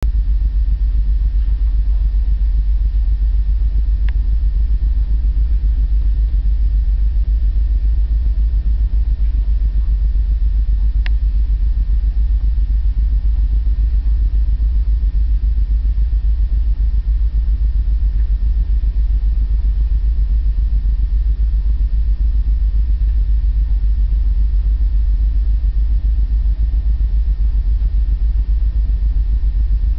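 Steady, deep rumble aboard a bulk carrier ship under way in heavy seas, with two faint clicks early on.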